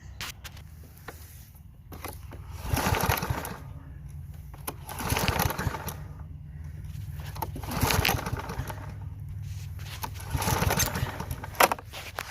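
Push mower's recoil starter pulled four times, each pull a rough second-long burst of the rope whirring and the engine cranking over, without the engine catching. A couple of sharp clicks come near the end.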